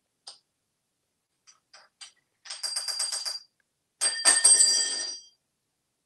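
An African grey parrot rattling the metal shower-drain grate with his beak. A few light clicks are followed by a quick metallic rattle with a high ringing about two and a half seconds in. A louder ringing rattle comes about four seconds in and lasts just over a second.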